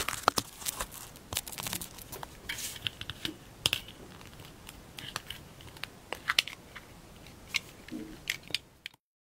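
Hands handling the clock kit's parts close to the microphone: paper crinkling and rustling with scattered clicks and taps at an irregular pace. The sound cuts off to silence near the end.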